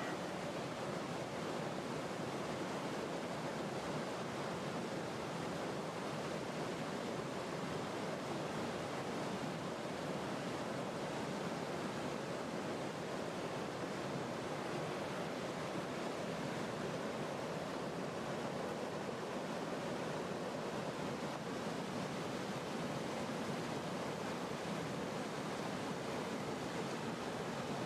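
Steady rushing of a fast-flowing stream over rocks, an even, unbroken wash of water noise.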